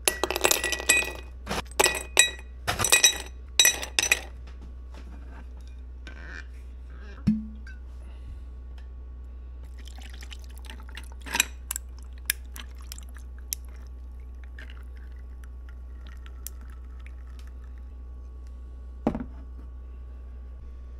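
Ice cubes dropped one after another into an empty glass tumbler, a quick run of sharp clinks over the first four seconds. About ten seconds in, whisky is poured over the ice with a few clinks of settling cubes, and a single knock sounds near the end, over a steady low hum.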